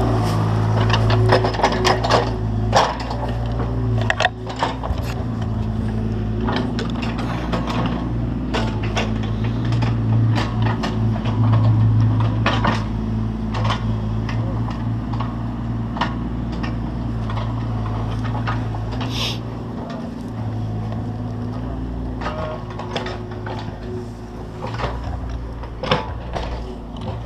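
Excavator's diesel engine running steadily with small rises and falls in load, over many scattered sharp knocks and clanks from the work.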